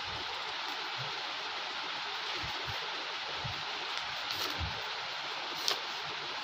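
Steady hiss of background room noise, with a few faint low knocks and a short tick about three-quarters of the way through.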